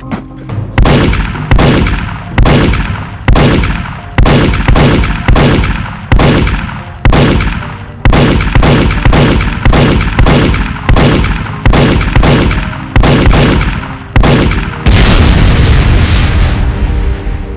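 A battle of dubbed-in gunshot sound effects, about twenty sharp shots at uneven intervals, each ringing out briefly. About fifteen seconds in comes one long explosion blast that fades away.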